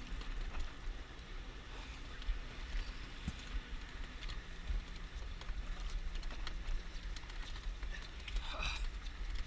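Steady low rumble of a fishing boat at sea, with scattered small clicks and a brief faint voice near the end.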